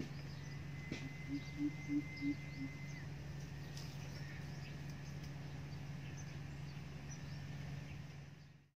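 Greater coucal giving four deep hoots in quick succession, about a third of a second apart, a little over a second in, over a steady low hum and faint high chirps.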